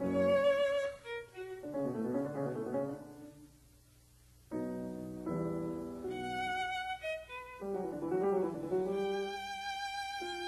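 Instrumental background music with violin over piano, in short phrases of held notes. It breaks off for about a second a bit over a third of the way in, then starts again.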